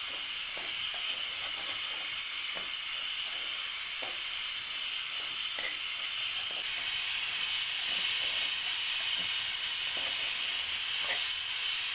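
Raw rice sizzling in hot pork lard in a soapstone pot as it is stirred, a steady hiss with faint scattered clicks of the spoon.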